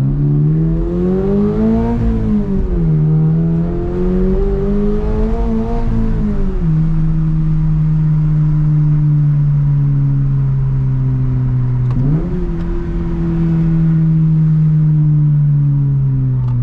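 Flat-four engine of a BRZ/GR86 running through a freshly fitted HKS Hi-Power single-exit racing catback exhaust. The revs climb and drop twice, then settle into a steady deep drone, with one quick blip about twelve seconds in.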